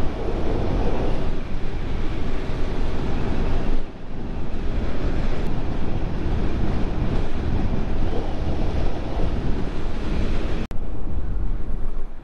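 Wind rushing over the microphone of a motorcycle riding at road speed, with the Bajaj Pulsar NS 200's engine running beneath it. The rush dips briefly twice, about four seconds in and near the end.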